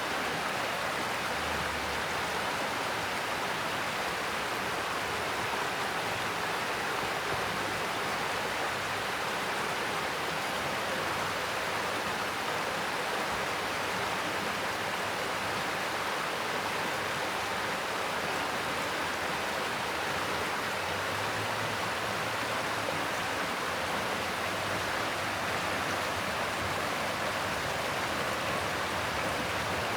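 Mountain stream rushing over rocks, a steady even rush of water.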